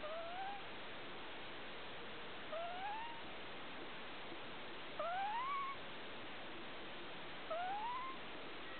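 American Shorthair cat snoring in its sleep with a high whistling sound, like a flute. Four whistles, one every two and a half seconds or so, each rising in pitch over about half a second.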